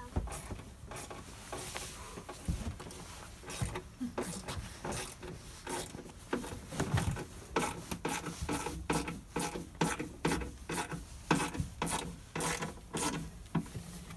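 Irregular clicks, knocks and scraping of someone working inside a sailboat's cockpit locker, with tools and fittings rubbing against the fibreglass and wood panels.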